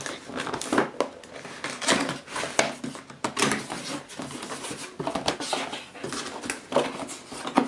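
Cardboard box being opened by hand: its flaps and handle scraping, rustling and knocking in irregular sharp bursts.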